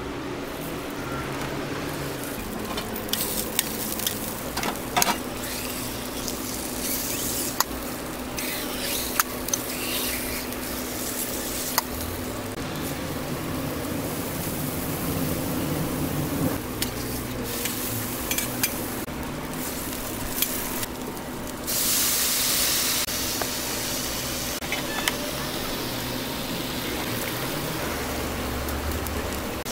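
Burger patties, onions and an egg sizzling on a flat-top griddle, with scattered sharp clicks of metal tongs and spatula on the steel over a steady low hum. A louder rush of sizzling comes for about a second around twenty-two seconds in.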